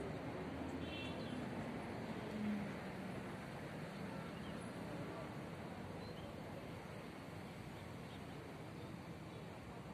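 Open-air background noise with a few faint bird chirps, the clearest about a second in.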